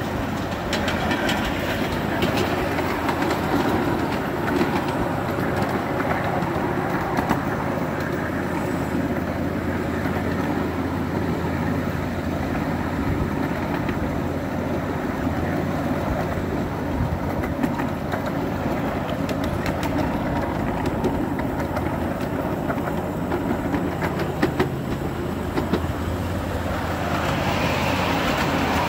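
Model trains running on a layout: a steady rumble and whir of small motors and wheels on track, with scattered clicks of wheels over rail joints.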